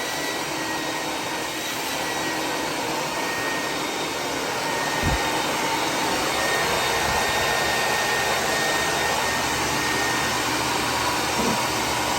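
A steady motor running with a rush of air and a thin high whine held throughout, like a vacuum or blower. A low thump about five seconds in, and a weaker one near the end.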